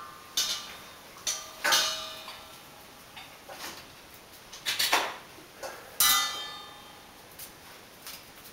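Stainless steel food bowl clanking and ringing on a tile floor as a puppy eats from it and nudges it. Several sharp, irregular clanks, the loudest about two seconds in and about six seconds in.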